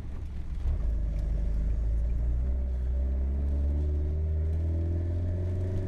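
Volvo car engine and exhaust heard from inside the cabin while driving, a steady low drone whose pitch climbs gradually through the second half as the car picks up speed.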